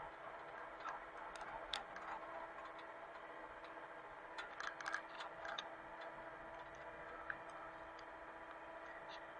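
Mini excavator engine running faintly and steadily, with two short clusters of light clicks and knocks, about a second in and again around the middle, and one more click later.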